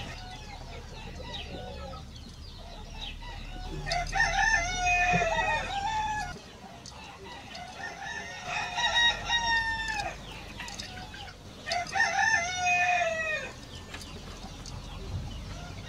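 Roosters crowing: three long crows about four seconds apart, each lasting around two seconds and falling in pitch at the end.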